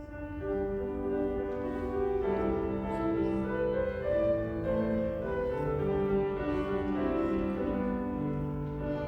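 Violins and piano playing together; the music starts right at the beginning, with long, held notes.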